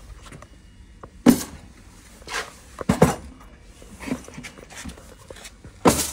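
A handful of sharp knocks and clatters from a box of old steel knife blades being lifted and moved, three of them loud.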